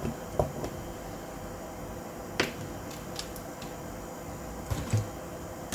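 A few small sharp clicks and a soft knock as small metal pistol parts are handled during disassembly of the hammer spring assembly.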